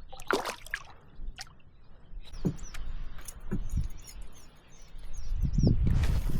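Small bird giving short, high chirps, about two a second, starting a couple of seconds in. Under it are a low rumble and a few dull knocks.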